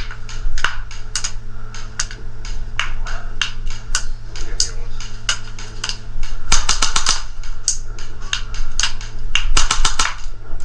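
Airsoft guns firing in an indoor arena: scattered single shots, with rapid strings of shots about two-thirds of the way through and again near the end.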